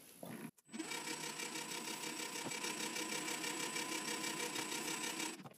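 Weisan WM210 benchtop metal lathe running with a steady whine from its motor and gearing. It starts about a second in and stops abruptly near the end.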